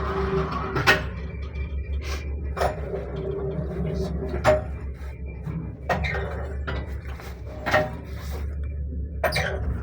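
1978 SamLZ passenger lift cabin in motion: a steady low hum with irregular knocks, clicks and short squeaks from the creaking cabin, about one every one to two seconds.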